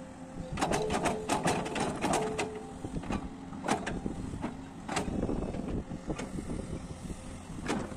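L&T-Komatsu hydraulic excavator working: its engine runs steadily while a quick run of sharp clanks and knocks comes in the first couple of seconds, then single knocks now and then.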